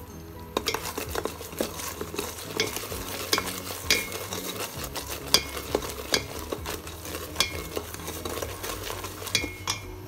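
A wooden spoon stirring bubbling caramel syrup that is foaming from freshly added baking soda in a metal pot: a steady sizzling bubble under irregular sharp clicks of the spoon against the pot. It starts about half a second in.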